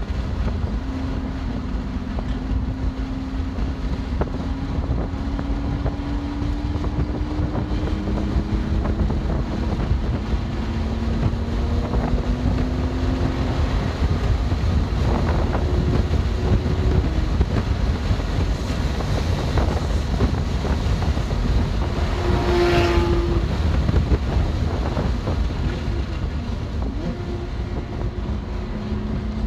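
BMW M2 Competition's twin-turbo inline-six pulling at speed on a race track, its note climbing slowly in pitch over long stretches, under a heavy low rumble of wind and road noise. A brief sharper, louder sound comes about three-quarters of the way through.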